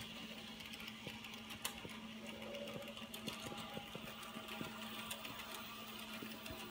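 Bachmann N scale Trailblazer model steam locomotive running along the track, its small electric motor giving a steady hum, with an irregular clicking of the wheels on the rails.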